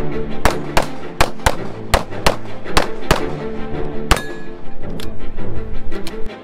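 Rapid pistol fire from a CZ Shadow 2, about a dozen shots, mostly fired as quick pairs about a third of a second apart, with a few single shots towards the end. Background music plays under the shots.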